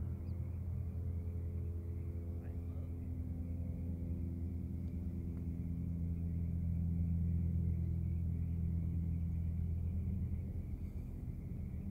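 BMW M2's 3.0-litre turbocharged straight-six idling steadily, a low even hum that swells slightly in loudness around the middle.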